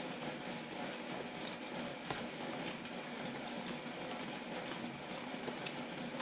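Close-up chewing and mouth sounds of a person eating chicken noodles: wet smacking and small irregular clicks over a steady background hiss.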